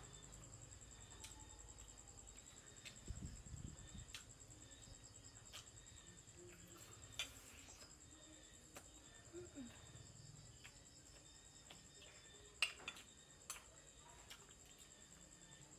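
Night insects trilling steadily in one high, unbroken note, with a few faint scattered clicks and taps, the sharpest about three-quarters of the way through.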